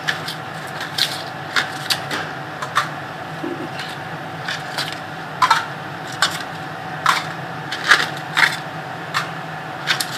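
Irregular light clicks and taps as baked butter cupcakes are lifted one by one out of their baking pan, over a steady faint hum.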